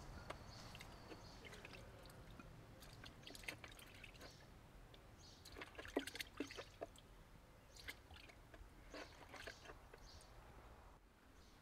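Faint, scattered drips and small splashes of brine as a hand fishes pickled cucumbers and green tomatoes out of a plastic barrel.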